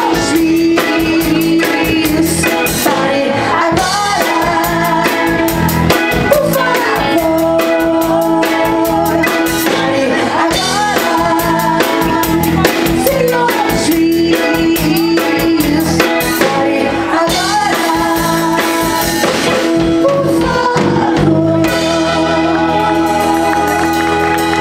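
A live band playing a song: group vocals with women's voices over drums, electric guitar and keyboard. About three seconds before the end the drumming stops and the band holds a sustained chord.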